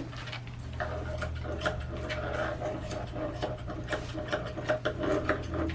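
Electric dog clippers running and buzzing as they cut through a terrier's coat, with a steady motor hum and short rasping strokes.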